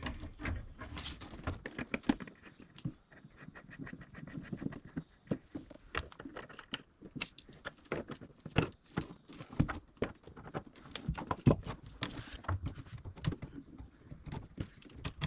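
Irregular small clicks, knocks and rustling of hands and tools handling plumbing fittings while the faucet's hot and cold supply lines are being connected.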